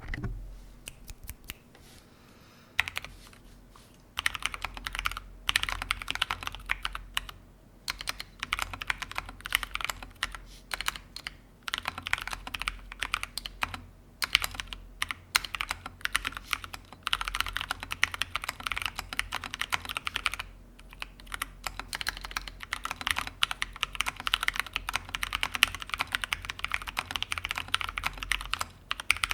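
Typing on a Gothic50 mechanical keyboard with lubed and filmed Durock T1 tactile switches, plate foam and Mistel keycaps: quick runs of keystrokes broken by short pauses, the longest a couple of seconds in.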